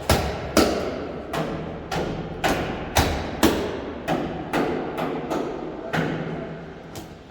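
Hammer blows on sheet metal, about a dozen strikes at roughly two a second with an uneven pace, each ringing briefly: panel beating to knock a dent out of car bodywork.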